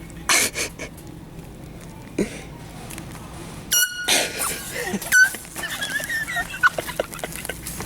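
Handheld air horn sounding in short bursts: a brief blast about four seconds in and a shorter, louder toot a second or so later.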